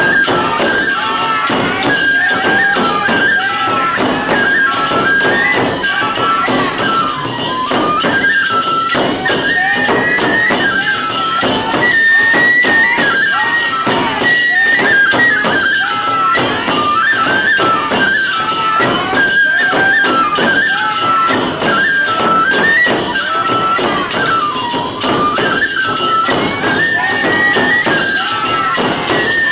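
Aomori nebuta bayashi played live: several bamboo fue flutes carry a stepping, repeating melody over rapid, continuous clashing of tebiragane hand cymbals and beats of large taiko drums.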